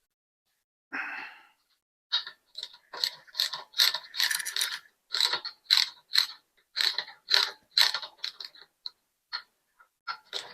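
Hand ratchet wrench clicking in quick, repeated back-and-forth strokes, about two to three a second, as it turns a handlebar riser bolt.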